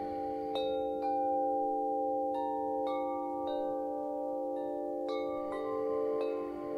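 Chimes ringing softly in calm relaxation music, a new note struck every second or so while the earlier ones ring on and overlap.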